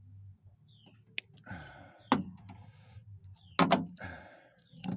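Clicks and short scraping strokes of a hand tool working the insulation off cut wires. Sharp knocks come about two seconds in and again about three and a half seconds in, the loudest sounds.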